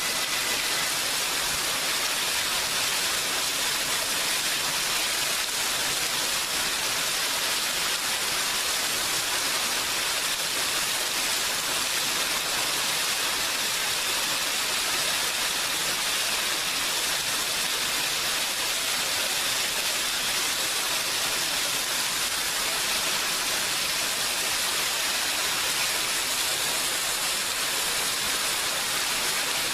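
Steady heavy rain, an even hiss of falling water with no distinct drops or breaks.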